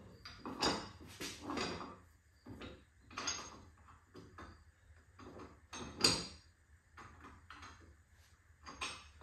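Metal clanking and scraping as a slide hammer is worked onto the bolts of a rear wheel hub: a run of irregular knocks, with one sharper clank about six seconds in.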